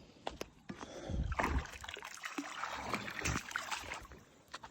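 Irregular splashing and gurgling of water at irrigation siphon pipes being stopped by letting air into them.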